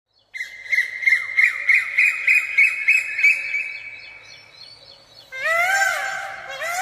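A quick series of high bird chirps, about three a second over a steady high tone, fading away; then about five seconds in a peacock starts its loud calls, each a wail that rises and falls in pitch, repeating.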